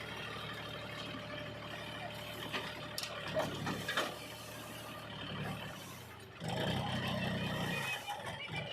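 Diesel engine of a backhoe loader or tractor running steadily, with a couple of sharp knocks about three and four seconds in. It gets louder for a second or two about six and a half seconds in, then drops back.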